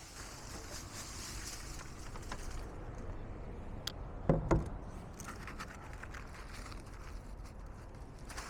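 Dry fallen leaves rustling and crackling as they are handled, with two short dull thumps about four and a half seconds in.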